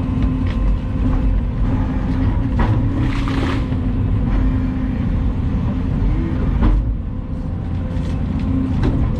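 Volvo EC220 excavator's diesel engine running steadily while digging, with scattered knocks and a brief rushing noise about three seconds in.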